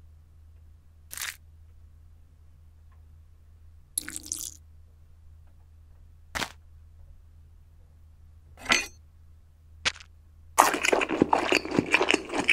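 A few separate clicks and clacks of plastic LEGO pieces being set down on a ceramic plate, about five spread over ten seconds. About ten and a half seconds in, a dense, loud run of crackling crunches begins as a fork digs into the brick-built food.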